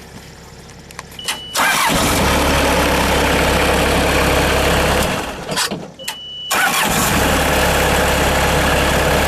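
Kubota V2203 four-cylinder diesel in a Bobcat 753 skid steer starting up and running loudly, after a short high beep. About five seconds in the sound drops away, a second short beep comes, and the diesel is running loudly again.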